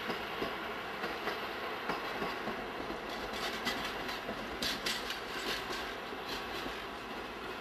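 Diesel locomotive rolling through the yard, its wheels clacking irregularly over rail joints and points over a steady rumble.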